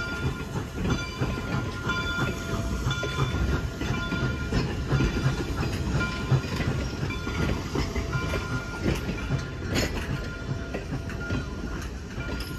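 Passenger cars of a steam excursion train rolling past: a steady rumble and clacking of steel wheels on the rails, with short high metallic squeals coming and going.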